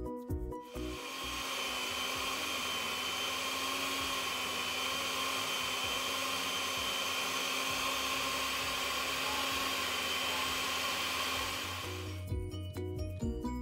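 Countertop blender running at a steady speed, blending mango and milk into a milkshake. It starts about a second in, after background music, and stops near the end, when the music returns.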